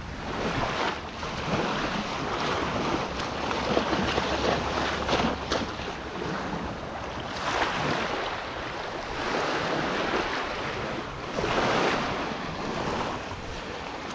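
Small waves washing in over sand and rocks at the water's edge, swelling every few seconds, mixed with strong wind buffeting the microphone.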